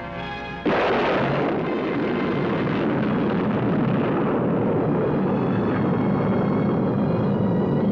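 Film score music, then under a second in a sudden loud roar breaks in and holds steady over it: the rocket blast of a solid-propellant Minuteman missile launching.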